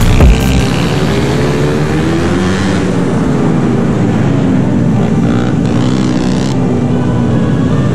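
Several small mini bike engines revving up and down through the corners, the nearest one loud and close, with pitch rising and falling as the throttle opens and closes. A last beat of electronic music cuts off about half a second in.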